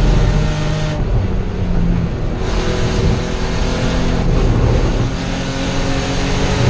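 Spec E30 BMW race car's inline-six engine at racing revs, heard from inside the stripped cabin. The driver lifts off the throttle about a second in, and the engine pulls hard again about a second and a half later.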